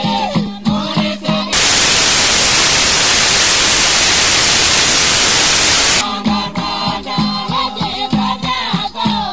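A song with singing over a regular beat, broken about a second and a half in by a loud, steady burst of hiss like radio static. The hiss lasts about four and a half seconds, then the song comes back.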